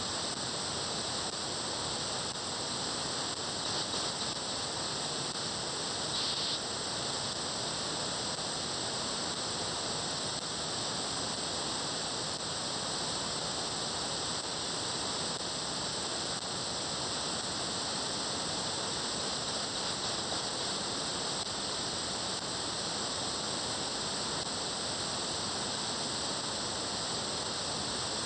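Upper-sideband audio from a software-defined radio receiver tuned to the MRC-100 satellite's 436.7 MHz downlink: steady radio static hiss with no clear signal, and a faint brief blip about six seconds in.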